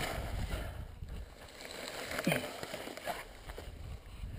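Mountain bike being pushed up a steep, dry grassy slope: low rumbling wind and handling noise on the bike-mounted camera's microphone, with grass brushing against the bike. A short low groan of effort, falling in pitch, comes about two seconds in.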